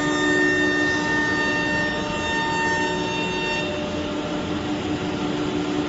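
9 kW air-cooled spindle of a CNC wood router running with a steady whine over even machine noise. Some of the higher tones drop away about two-thirds of the way in, while the lower whine carries on.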